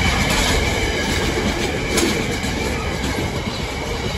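A train passing close by over the level crossing. Its wheels knock sharply over the rail joints a few times, over a steady rumble with a faint high tone running through it.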